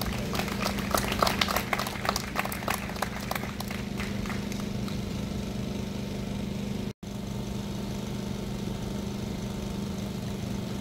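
A steady low motor hum, like an idling engine, with a patter of irregular sharp clicks over the first few seconds; the sound cuts out for an instant about seven seconds in.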